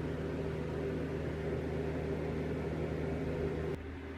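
A steady low machine hum with a faint hiss, made of several fixed low tones; one of the tones cuts out near the end.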